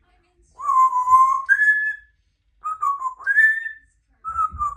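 African grey parrot whistling: a lower held note that steps up to a higher one, twice, with a third phrase beginning near the end.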